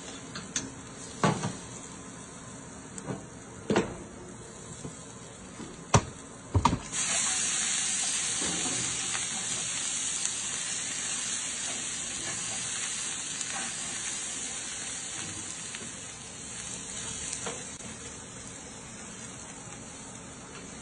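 A few sharp metal knocks and scrapes as a utensil works against the automatic wok's steel drum. About seven seconds in, water hits the hot drum with a sudden loud sizzling hiss of steam that slowly dies away as the drum is scrubbed.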